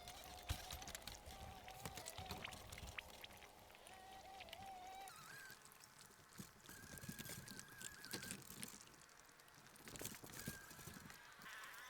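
Faint river water trickling, with scattered light clicks and a faint held whistle-like tone that moves higher about halfway through.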